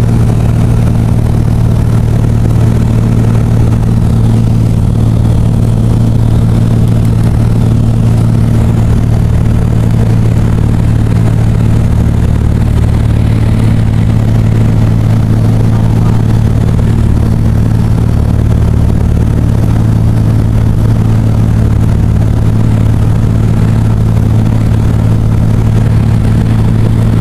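Loud, steady drone of a small aircraft's engine, heard from inside the cabin, with a constant low hum that holds the same pitch throughout.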